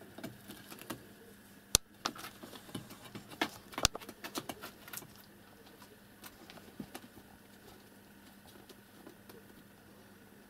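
Irregular light clicking and crackling, busiest in the first five seconds with two sharp louder clicks about two and four seconds in, then thinning to faint scattered ticks over a faint steady hum.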